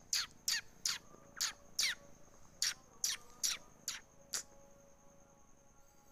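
A bird chirping fast: about a dozen short, sharp chirps, each sweeping down in pitch, stopping about four and a half seconds in. A steady high-pitched tone sounds underneath.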